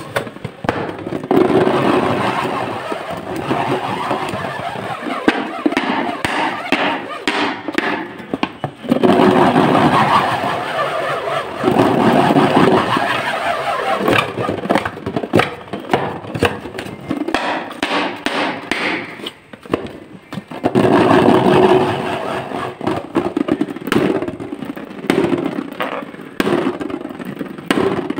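Fingers rubbing and squeezing an inflated latex balloon, the rubber squeaking and creaking in stretches of a few seconds with brief pauses.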